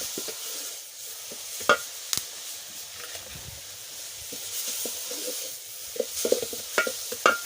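Onions and amaranth greens sizzling in hot oil in a pan while being stirred and sautéed, with a steady hiss. A utensil clinks against the pan a few times, twice about two seconds in and several times near the end.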